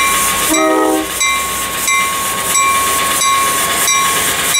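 Passenger train passing close by, its wheels clacking over the rail joints about twice a second, with a short horn toot about half a second in.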